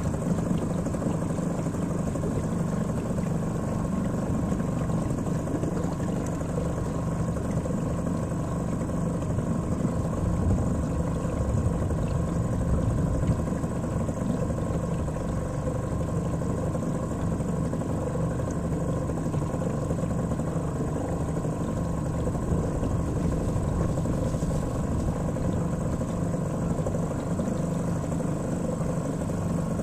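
A small outboard motor on a dinghy, heard from aboard, running steadily at an even throttle.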